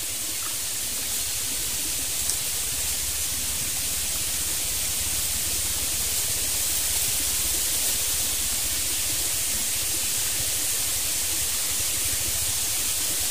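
Steady hiss of running water from a small stream, even throughout, with a faint low rumble underneath.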